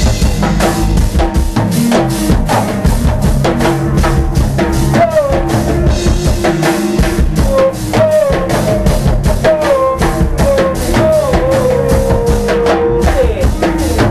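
Go-go band playing a busy drum and percussion groove with bass, a melodic line sliding up and down over it.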